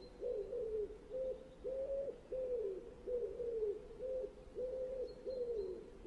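Common wood pigeon cooing: an unbroken run of low, hooting coos, about three every two seconds.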